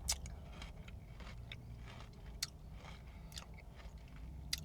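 A person chewing a mouthful of Blizzard soft serve with OREO cookie pieces, with scattered small mouth and spoon clicks, faint over a low steady hum.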